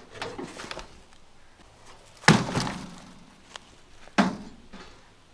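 A wooden box frame with a wire-mesh side being handled and set down on soil: light knocks and rustling at first, then two dull thunks about two seconds apart, the first the loudest.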